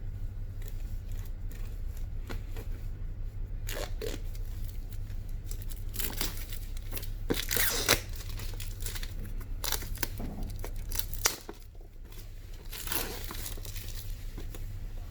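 Packaging of a smartphone box being torn open and crinkled by hand: irregular tearing and rustling, busiest in the middle, with two sharp snaps near 8 and 11 seconds in. A steady low hum sits underneath until about 11 seconds in.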